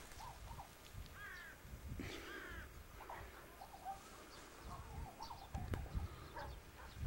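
Crows cawing, two harsh calls about a second and two seconds in, with small birds chirping faintly in between and after.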